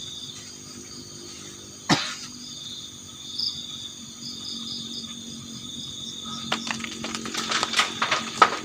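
Crickets and other insects chirring steadily in forest at night. One sharp knock comes about two seconds in, a low steady hum sets in about halfway, and a quick run of clicks and knocks follows near the end.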